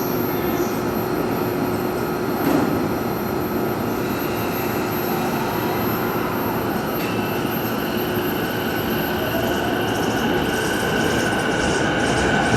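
JR East E233-5000 series electric train running at a station, with a steady rumble and a brief knock about two and a half seconds in. From about nine seconds in, a motor whine rises slowly in pitch and the sound grows louder.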